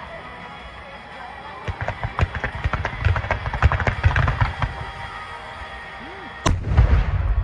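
Fireworks going off: a quick run of sharp crackling bangs, then one big heavy boom with a low rumble about six and a half seconds in. Music plays underneath.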